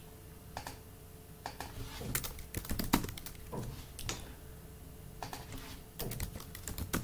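Typing on a computer keyboard: irregular runs of key clicks with short pauses between them, as text is entered into notes.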